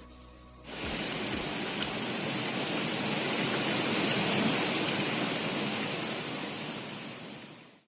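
Falling water: a steady rushing hiss that starts suddenly about a second in, after the tail of some music, and fades out near the end.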